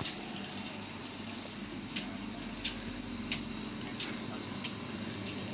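Steady supermarket background hum from the cooling and ventilation, with faint sharp ticks about every two-thirds of a second from about two seconds in.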